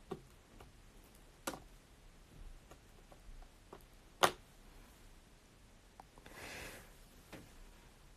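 A few short clicks and taps from things handled on a desk, the loudest about four seconds in, then a brief soft rustle a little after six seconds.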